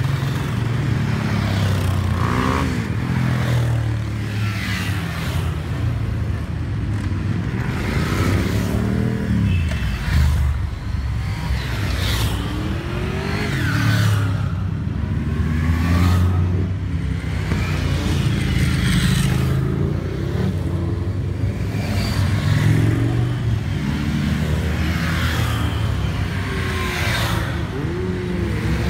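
Motorcycles and quad bikes riding past one after another, about one every two seconds, each engine revving up and falling away as it passes, over the steady running of many engines in the waiting column.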